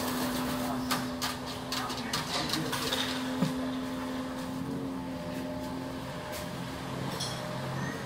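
Oriental pied hornbill's wingbeats as it flies up, a run of quick flaps and clicks over the first three seconds, over a steady machine hum that continues throughout.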